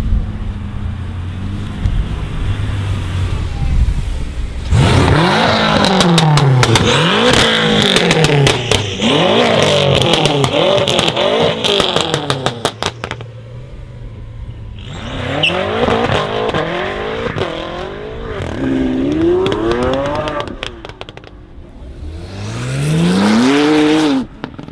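Tuned BMW M5 F10's twin-turbo V8 with catless downpipes and an M Performance exhaust, idling, then revved hard in a string of quick blips with loud crackling pops on the overrun. After a short lull it is blipped again several times, then held through one long climb in revs that cuts off abruptly.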